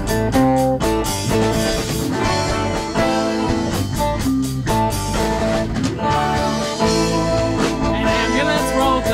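Live rock band playing: guitars over a drum kit, with sustained notes changing every half second or so under a steady beat.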